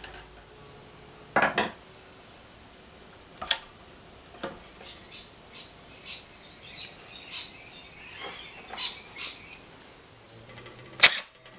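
Scattered clicks and small knocks of a screwdriver and loose screws being handled as a mitre saw's motor is unscrewed and lifted off the saw, with a run of light ticks in the middle and one sharp knock near the end.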